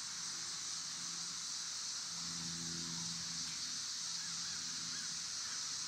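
Outdoor background sound: a steady high-pitched hiss, with faint low humming tones that come and go in short stretches a few times.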